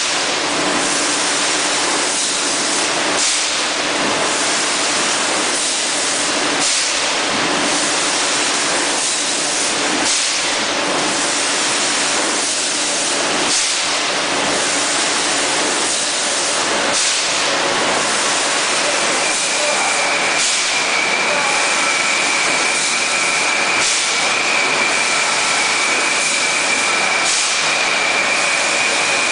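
Packing machinery on a 6-litre PET bottle filling line running steadily: an even hiss with a short burst of noise about every second and a half to two seconds. A steady high whine joins in about two-thirds of the way through.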